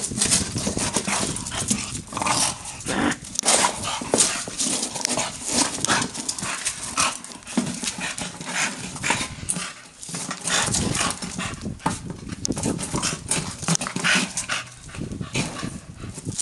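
A bulldog wrestling a plastic traffic cone across a tiled floor: irregular scraping and knocking of the hollow cone on the tiles, mixed with the dog's grunting breaths.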